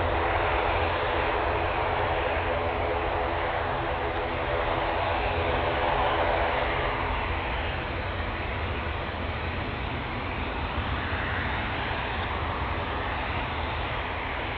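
Engines of a twin-turboprop airliner and a Boeing 787-10 airliner running at taxi power as both taxi past: a steady engine drone with several held tones, easing slightly in the second half.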